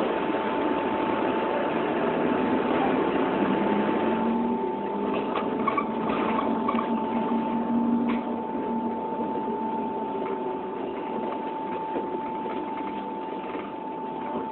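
A vehicle running, heard from inside, with a dense rumble of engine and road noise and a steady high-pitched tone over it; the noise eases a little after about four seconds.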